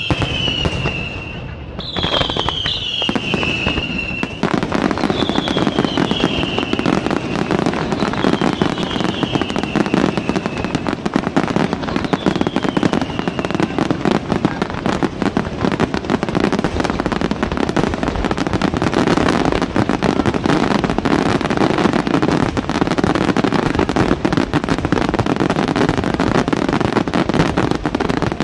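Aerial fireworks display: a dense, continuous barrage of shell bursts and crackling stars that thickens and grows louder about four seconds in. In the first dozen seconds there are also a few high whistles, each falling in pitch.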